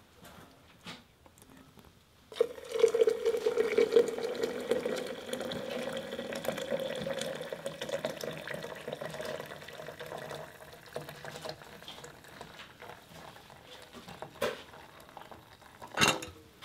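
Water pouring from a kettle into a steel Stanley French press to brew coffee. The stream starts about two seconds in, runs steadily and thins out toward the end, with a couple of light knocks near the end.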